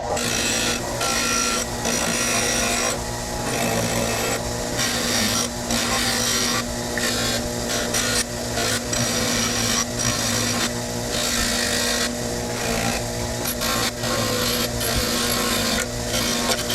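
A motor-driven wire wheel running steadily and scrubbing rust off a steel adjustable wrench, its scratchy noise rising and falling as the wrench is pressed against it and moved.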